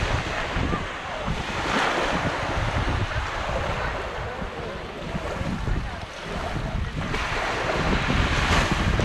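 Sea waves breaking and washing up the shore, with wind buffeting the microphone. The wash swells about two seconds in and again from about seven seconds.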